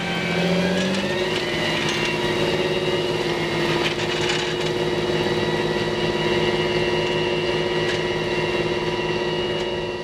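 Tractor engine running steadily at a constant speed.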